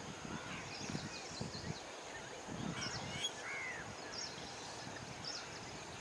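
Great stone-curlew calling: a few harsh, arching call notes in the middle, among short high chirps of small birds and a low uneven rumble.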